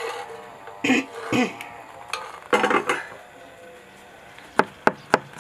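Metal pan lid and spoon clinking against a steel stew tray, with a few short vocal sounds in between. Near the end, sharp evenly spaced knocks begin, about three a second.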